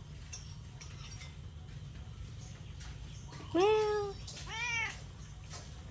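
Domestic cat meowing twice about a second apart, each meow rising and then holding or falling: a hungry cat asking for food.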